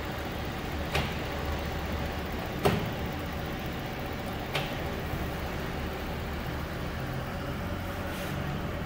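Steady hum of an industrial batch oven's blower motor running. Three sharp clicks come through it, about one, two and a half and four and a half seconds in, the middle one loudest.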